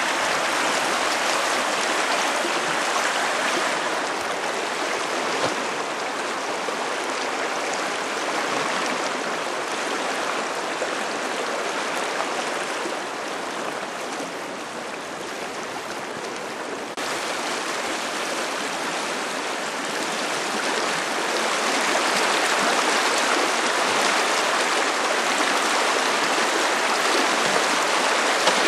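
A shallow river rushing steadily over rocks in riffles. The rush changes abruptly about two-thirds of the way through, then goes on a little louder.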